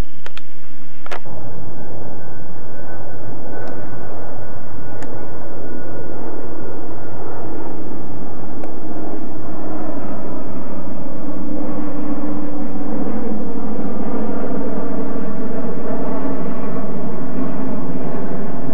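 A few sharp clicks, then a steady aircraft engine drone that grows louder over the second half. A faint whine slowly falls in pitch in the first part.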